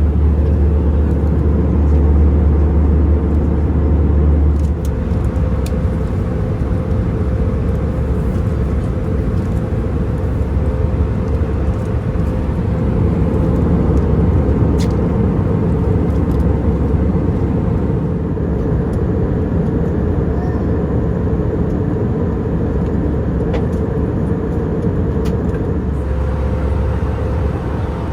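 Airbus A320-200 cabin noise in flight: a steady, loud drone of engines and airflow with a deep low rumble and a faint steady hum. The drone shifts abruptly in tone about five seconds in and again near the end.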